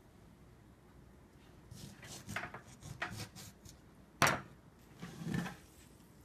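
A lemon handled with a kitchen knife on a tabletop: light knocks and scrapes as it is cut, one sharp knock of the knife on the table about four seconds in, then a short squelchy rustle as the lemon is squeezed.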